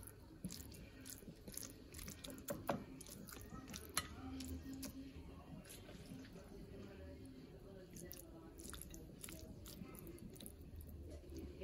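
Faint wet squelching and scattered light clicks as sauce-coated spaghetti is lifted and dropped with a kitchen utensil.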